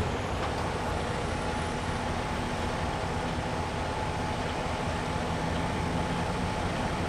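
Road traffic at an intersection: vehicle engines running and tyre noise as cars and a van move off slowly, a steady low rumble throughout.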